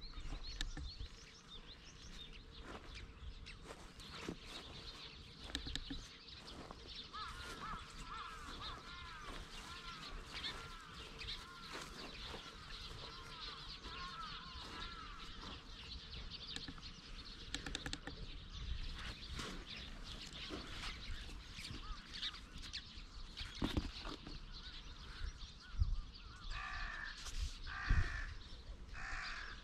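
Open-air ambience with birds. A small bird twitters in repeated rising-and-falling notes through the middle, and near the end a crow caws three times, along with a couple of low thumps.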